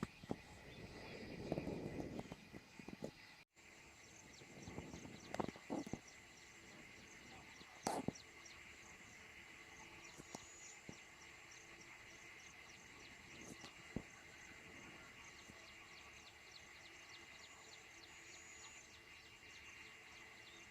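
Faint outdoor ambience: a steady, high-pitched chirring runs throughout, with a few rustles and sharp knocks in the first several seconds. The sound drops out for an instant about three and a half seconds in.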